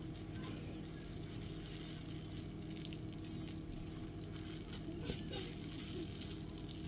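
Faint, steady fizzing crackle of soap suds in a bowl of water, made with dishwashing liquid, where stitched fabric has been put to soak, with a small tick about five seconds in.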